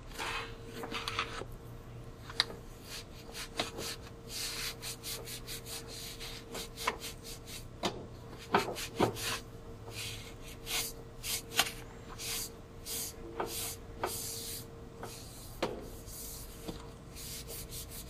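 A terry cloth rag rubbing and wiping grime off a washing machine's painted metal control panel around the timer shaft, in a run of short scrubbing strokes with a few light knocks.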